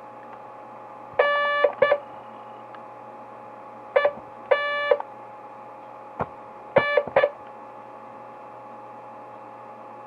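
Morse code beeps from a Digi-Tech toy walkie-talkie base station's key: one electronic tone keyed in short and long presses, in three groups of dots and dashes, a long then a short, a short then a long, then a few short ones.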